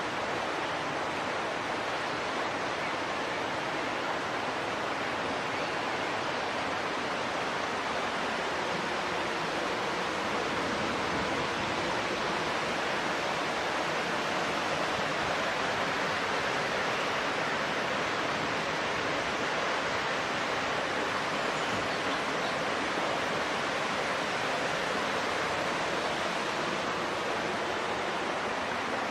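Floodwater rushing along a flooded road: a steady, unbroken rush of water, slightly louder in the middle.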